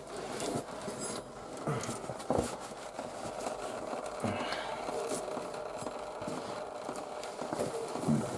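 Scattered light scrapes, clicks and knocks of someone handling things, over a steady faint hum.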